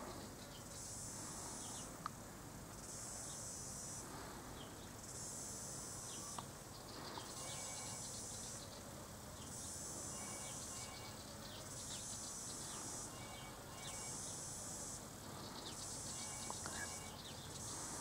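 Cicada chorus pulsing in a regular rhythm: a faint high buzz that swells for about a second and repeats about every two seconds.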